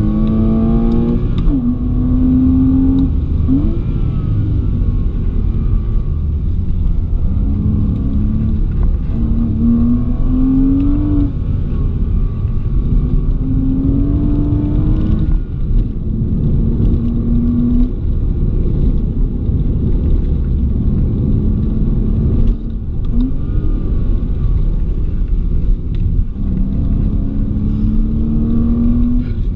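Porsche Boxster's engine heard from inside the cabin under hard driving, its pitch rising again and again under acceleration and dropping at each gear change or lift for a corner. A steady low rumble of road and wind noise runs underneath.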